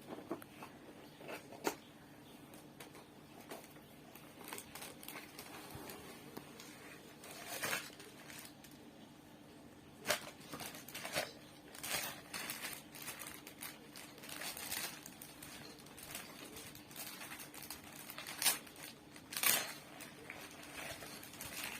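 Packaging of a play-dough ice cream toy set being opened by hand: irregular crinkling and rustling of plastic and cardboard, with some tearing. Several louder crackles stand out, the loudest near the end.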